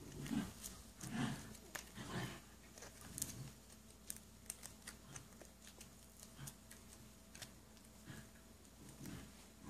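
Faint crinkles and small clicks of perforated paper play money being folded and separated by hand. A few soft, low sounds of unclear source stand out in the first two seconds or so and again near the end.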